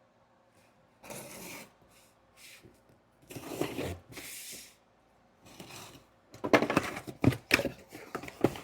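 Shipping packaging being handled and opened: a few separate rustles and scrapes, then from about six seconds in a busier stretch of crinkling, tearing and small knocks.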